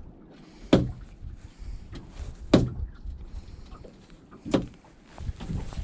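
Three sharp knocks about two seconds apart over a low rumble of wind and water: waves slapping against the hull of a small boat at sea.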